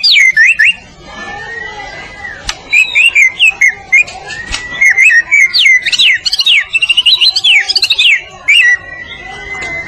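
White-rumped shama (murai batu) singing: rapid runs of clear whistled notes and quick pitch sweeps, broken by long level whistles about a second in and again near the end.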